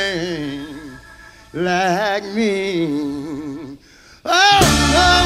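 Slow blues recording: a lone lead melody line with vibrato and bends plays with little behind it, breaks off briefly, then the full band comes back in loudly about four seconds in.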